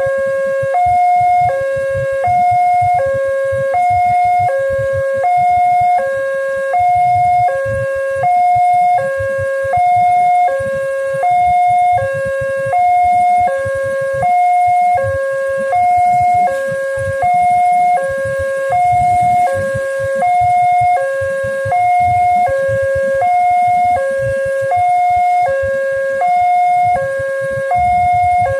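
Railway level-crossing warning alarm sounding its two-tone electronic signal: a higher and a lower note alternating steadily, each held just under a second, the warning that the barriers are down for an approaching train.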